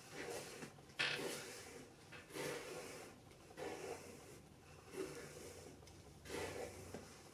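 Hairbrush strokes through wet hair: a short swish roughly every second and a bit, the sharpest about a second in.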